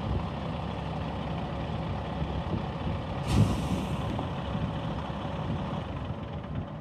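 2006 Kenworth T800 truck tractor's diesel engine running steadily, with a short hiss of air from its air brake system about three seconds in.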